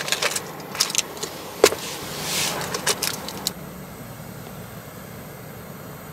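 Metal clinks and knocks of a lid and cookware being handled, with one sharp clack about one and a half seconds in. After about three and a half seconds only a steady faint background noise remains.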